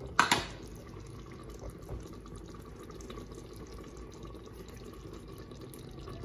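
Watery keema curry simmering in a pot, a steady low bubbling hiss. A single sharp knock about a quarter of a second in.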